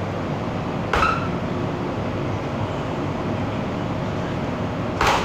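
Steady hum of an MTR M-Train car standing at a platform with its doors open, with two sharp knocks, one about a second in and one near the end.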